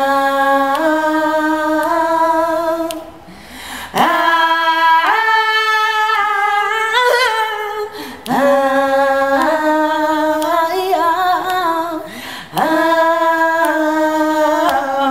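A cappella female singing, with no instruments: long held notes and ornamented runs. There are four phrases, with short breaths between them.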